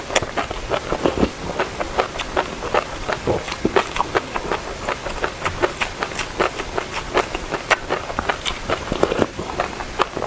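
Close-miked eating of passion fruit: chewing and crunching of the pulp and seeds, heard as a dense run of irregular sharp clicks, several a second.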